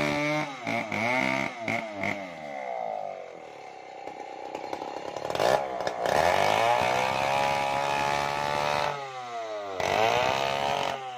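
New West 070 chainsaw, a large two-stroke Stihl 070 clone fitted with a 36-inch bar, ripping a coconut log lengthwise. The engine pitch rises and falls as the throttle is worked, and it holds high and steady under load for a few seconds in the middle.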